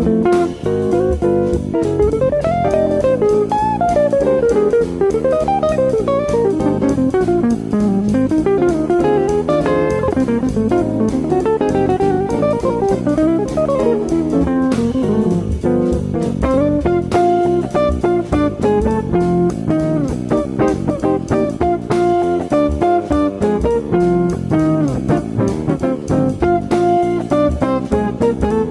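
Background music: an instrumental led by guitar playing quick melodic runs, with drums.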